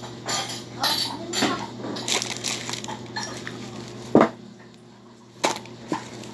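Plastic and cloth shopping bags rustling and crinkling as groceries are rummaged through, with a few sharp knocks of tin cans and packages bumping together, the loudest about four seconds in.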